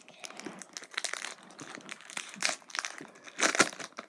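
Foil wrapper of a Pokémon card booster pack crinkling as it is torn open, in irregular rustles with a louder burst near the end.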